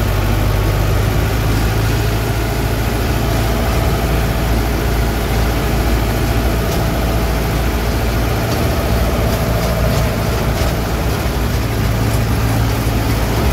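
Tractor diesel engine running steadily under load while it drives a PTO-driven manure spreader, heard from inside the cab.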